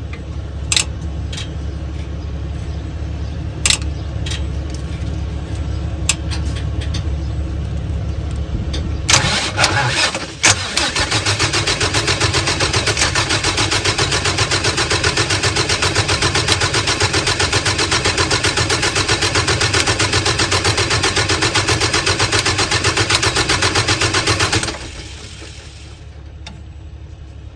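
Volvo semi truck's diesel engine being cranked by its starter, which is jumped directly with the ignition on. A steady low hum with a few clicks comes first; about nine seconds in, the cranking begins with a rapid pulsing that runs for roughly fourteen seconds, then cuts off suddenly.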